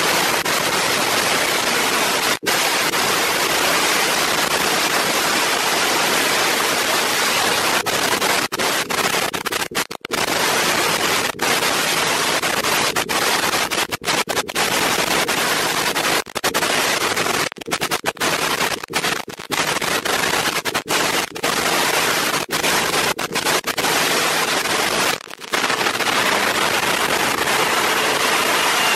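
Nitromethane-fuelled funny car's supercharged V8 running during a pit warm-up. It comes through as a harsh, distorted crackle that cuts out briefly again and again.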